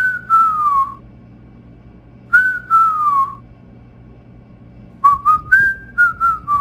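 A person whistling: two short phrases that each slide downward, a pause, then a quicker run of short notes stepping up and down in a little tune.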